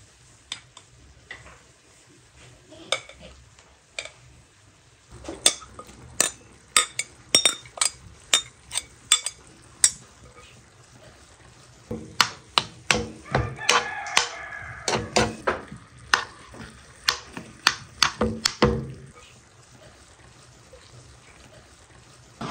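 A metal spoon scraping and tapping against a glass bowl and a frying pan as chopped greens are spooned into the pan and spread over the eggs. It makes two spells of sharp clicks and knocks, several a second at times.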